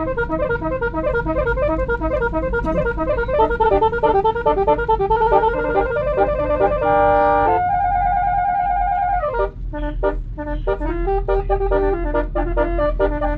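Basuri musical air horn (telolet-style bus horn) playing a quick melody of short notes. About seven seconds in it holds a chord, then the notes slide down in pitch before the tune starts again.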